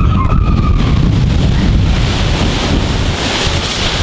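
Wind buffeting the microphone and rushing water as a log flume boat rides down and through the water, with riders' screams trailing off in the first second.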